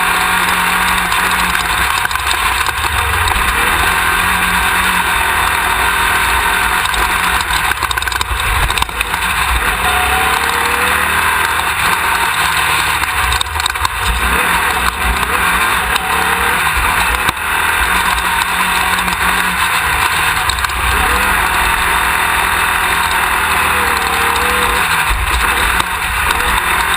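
A Class 1600 off-road race buggy at speed, heard from a camera mounted at its rear. Its air-cooled Volkswagen 1600 engine runs hard under a loud, steady rush of noise, and the engine note climbs several times as the driver works through the gears.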